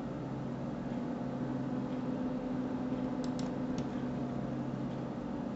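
Steady low hum with hiss, the background noise of a home recording setup, with three faint clicks a little over three seconds in, typical of a computer mouse being clicked.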